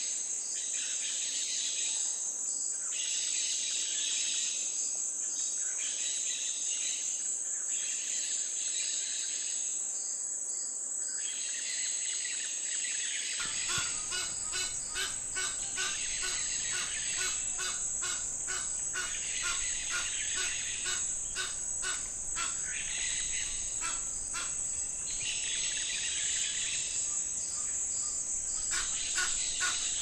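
Outdoor nature soundscape: a steady high-pitched insect drone, with birds chirping over it. From about halfway through, a low rumble and quick repeated ticks join in.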